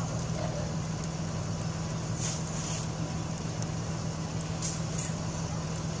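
Blue Bird Vision school bus idling while stopped with its stop arm out, a steady low engine hum.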